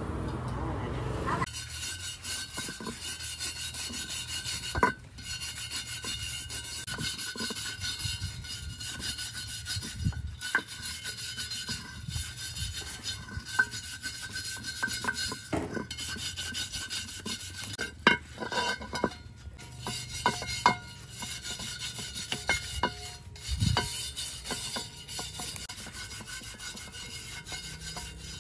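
Hand rubbing and rasping on a workpiece, steady throughout, with many scattered light clicks and taps.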